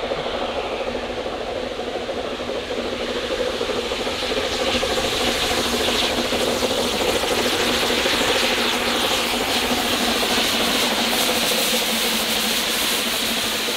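A Double Fairlie narrow-gauge steam locomotive running with a train. Its exhaust and running noise grow louder over the first few seconds as it approaches, then stay loud and steady as it passes close by.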